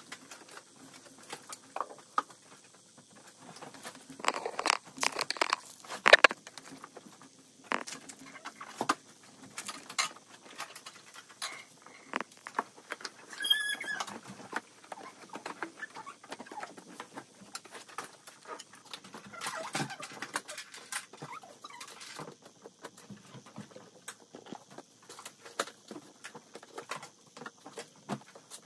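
Clothes and household items being handled and sorted: fabric rustling with irregular soft thuds, clicks and knocks as garments are folded and dropped into a storage box and a suitcase. A brief high squeak about halfway through.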